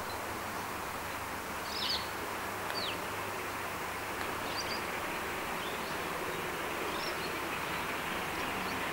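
Victorian Railways R class express steam locomotive approaching from afar, working hard: its exhaust is a steady distant rumble that grows a little louder toward the end. A few short bird chirps sound over it.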